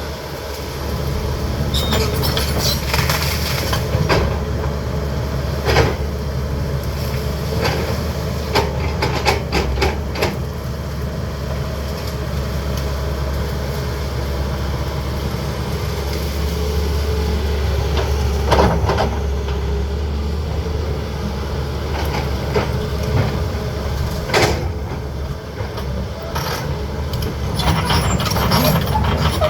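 CAT 320D excavator's diesel engine running steadily under working load, with intermittent sharp knocks and cracks from the machine's work clearing the land.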